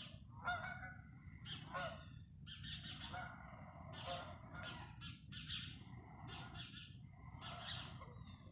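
Birds chirping and calling: many short, high calls following one another every half second or so.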